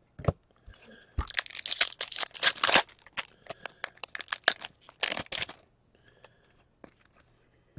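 Hockey trading cards being slid and flicked one past another in the hands: dry papery crinkling and flicking in two spells of a second or two each, with scattered light ticks between.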